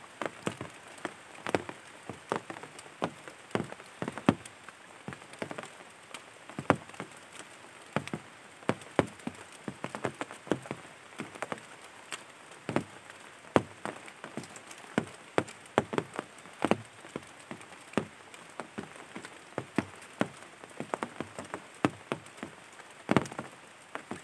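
Rain falling as scattered, heavy drops, tapping irregularly several times a second over a light hiss.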